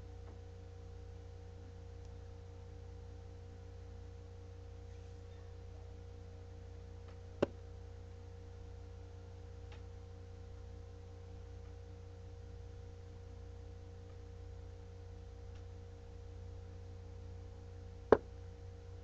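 A steady low hum carrying a few faint steady tones, broken by two sharp clicks, one about seven seconds in and a louder one near the end.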